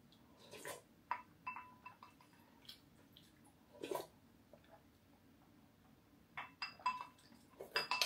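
Metal spoon clinking against a small glass bowl as it is scraped, light clinks with a short ring, in clusters about a second in and again near the end, with quiet sips from the spoon in between.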